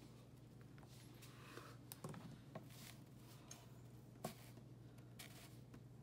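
Near silence, broken by a few light clicks and knocks as the number tiles of a wall-hanging Santa countdown sign are handled and flipped over; the sharpest knock comes a little over four seconds in.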